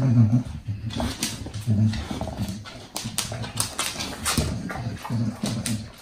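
English bulldog breathing noisily as it sniffs around for food: short, low, pitched grunts repeated about once a second, with sharp clicks between them.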